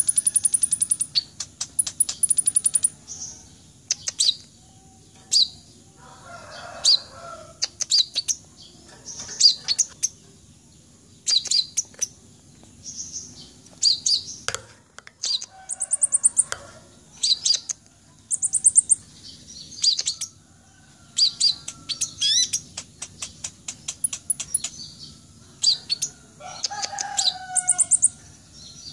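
Purple-throated sunbird (the red-breasted 'kolibri ninja') singing in repeated bursts of high, rapid twittering trills and chirps, each about a second long with short pauses between.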